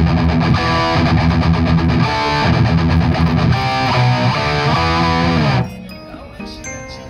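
Loud background music led by a distorted electric guitar, cutting off suddenly about five and a half seconds in. A quieter, lighter tune follows.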